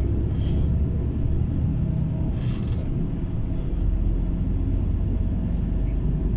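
Tour coach driving, its engine and road noise a steady low rumble heard from inside the cabin.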